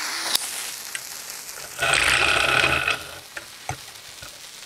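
A jet torch lighter hissing briefly, then a bottle-rocket fuse on a miniature black-powder cannon catching and sputtering, loudest for about a second around two seconds in, then burning on more quietly with a short crack near the end.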